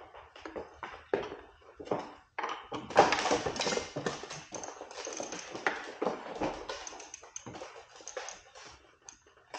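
Irregular clicks and knocks of a hand ratchet driver and metal tools working the crank arm bolt of an e-bike as the arm is refitted and tightened, loudest about three seconds in.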